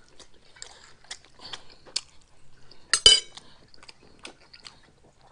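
Metal utensil clinking and scraping against a dish during a meal, in scattered small clicks, with one louder ringing clink about three seconds in.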